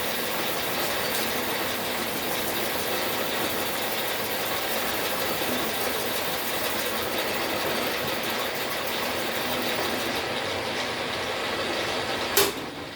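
A machine tool and its cutter running steadily, cutting a tooth in a small 16-tooth thread-dial gear blank held in a dividing head. A little past ten seconds the highest hiss fades, and near the end a single loud clunk comes as the machine winds down.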